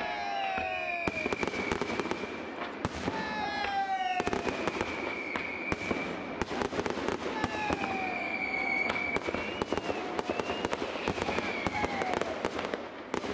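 Fireworks display: dense crackling and popping, with several long whistles that fall slowly in pitch overlapping one another.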